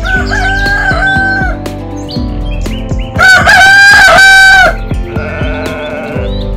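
Rooster crowing twice: a held crow at the start, then a louder, fuller crow about three seconds in. Background music with a steady beat plays underneath.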